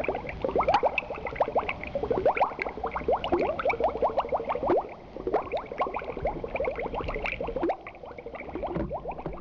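Bubbling water sound effect: a dense stream of quick rising blips like air bubbles, with brief dips in level about five seconds in and again near the end.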